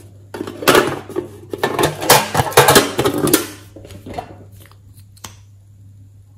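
Small metal tin box being handled and opened, its lid and the things inside clattering and clicking for about three seconds. Sparser clicks follow, with one sharp click about five seconds in as a lip gloss tube is uncapped.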